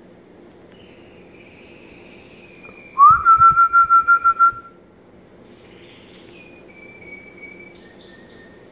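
Bird calling: one loud whistled call that rises briefly and then holds steady in rapid pulses for about a second and a half, with fainter high chirps before and after it.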